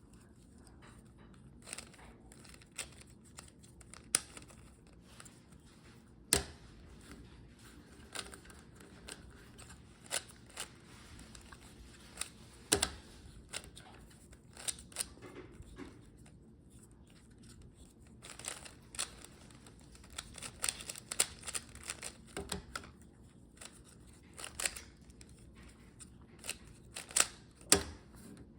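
A magnetic Rubik's Cube being turned by hand: irregular plastic clicks and snaps as its layers turn, coming faster and closer together in the last third.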